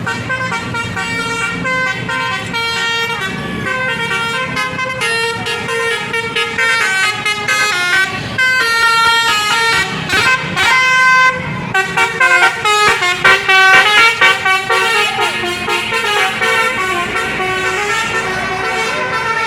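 Bus 'telolet basuri' multi-tone musical horn playing a tune of quick, stepped notes, loudest a little past the middle.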